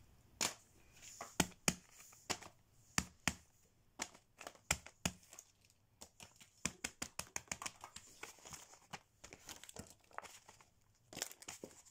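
Silicone pop-it fidget toys being handled and set down on a paper sheet: irregular sharp clicks and taps, some in quick flurries, with paper crinkling.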